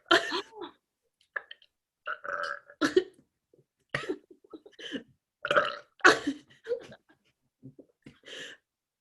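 A woman burping again and again in quick succession, about a dozen short burps of uneven loudness, forced out as fast as she can.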